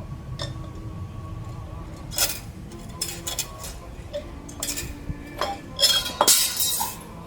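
Small metal motorcycle engine parts and hand tools clinking and clattering as they are handled, a scatter of separate clinks with the loudest cluster about six seconds in.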